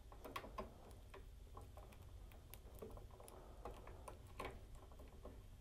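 Faint, irregular small plastic clicks as wires are handled and pushed into a WAGO lever-nut connector.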